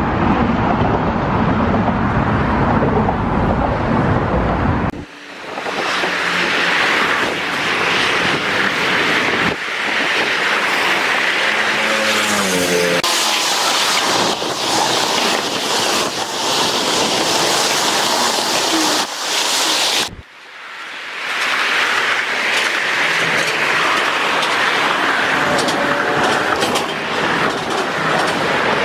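Steady road traffic noise from cars and trucks on the bridge roadway alongside the sidewalk. It drops out abruptly about five seconds in and again near twenty seconds, then resumes.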